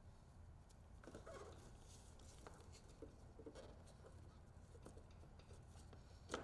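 Near silence with faint, scattered light clicks and taps of hand-tool work on the winch's negative cable at the chassis, with one sharper click near the end.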